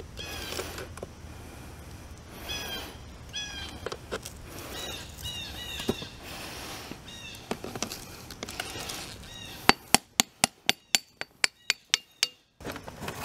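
Birds chirp repeatedly in the background. About ten seconds in comes a quick run of around a dozen sharp knocks, about five a second, as the bronze casting is knocked loose from its broken sand mold.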